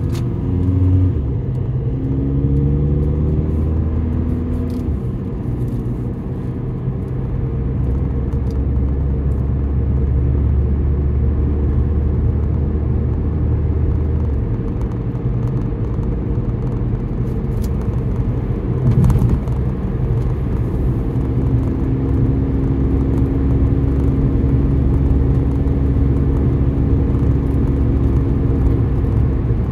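Car driving in traffic: a steady low engine and road rumble, the engine note climbing in steps near the start and then holding steady. A brief knock is heard about nineteen seconds in.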